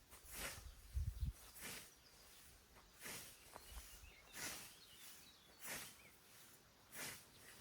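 Hand scythe swishing through tall grass in a steady rhythm, about one stroke every second and a quarter, with a couple of low thumps about a second in. Faint bird chirps.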